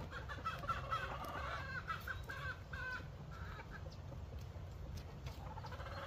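Chicken clucking, a quick run of short notes over about the first three seconds, with soft scraping of gloved hands digging in potting soil.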